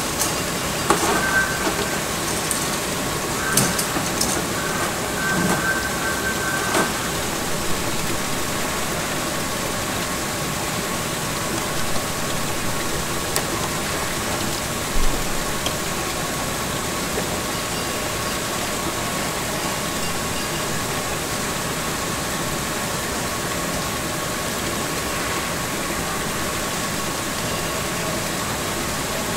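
Steady machine noise with a constant high whine. A few clicks and short squeaky tones come in the first seven seconds.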